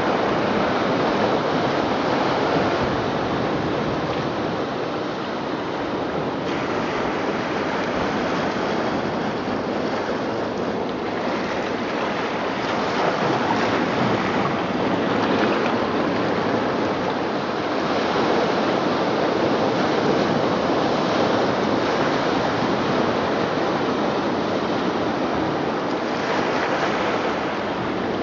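Recorded ocean surf played through loudspeakers built into a sculpture: a continuous wash of waves that swells and eases gently.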